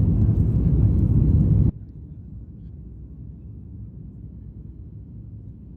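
Loud low rumble of a Boeing 737-8 MAX's CFM LEAP-1B jet engines and airflow, heard inside the cabin. It cuts off abruptly under two seconds in, leaving a much quieter steady low hum.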